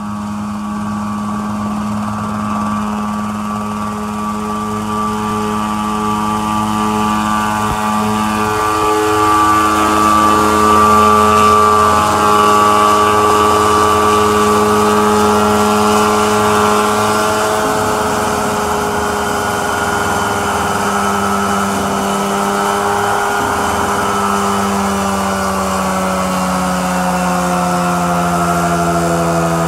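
Mosquito ultralight helicopter's engine and main rotor running steadily at flight power. In the last few seconds the pitch falls as the engine slows.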